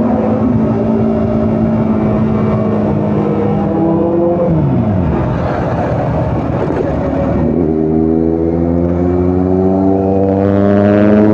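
Sport motorcycle engine running at road speed. Its pitch falls away about four to five seconds in as the throttle is closed, then climbs again from about seven and a half seconds and holds high.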